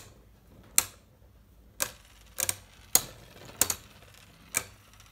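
Two Beyblade Burst spinning tops, one right-spin and one left-spin, clashing against each other in a plastic stadium. There are about eight sharp clicks at uneven intervals, some in quick pairs.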